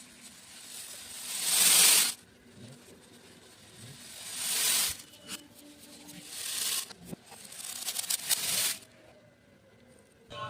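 Beads being poured in a stream onto more beads, a rattling hiss that builds over a second or two and then stops, four times over, with scattered single clicks of beads landing in between.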